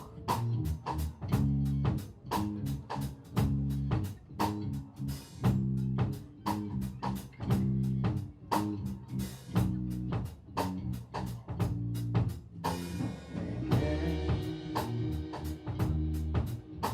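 Rock band playing live: drum kit with kick and snare hits on a steady beat under distorted guitars and bass. About 13 seconds in the drums thin out and the guitars ring on as the intro gives way to the verse.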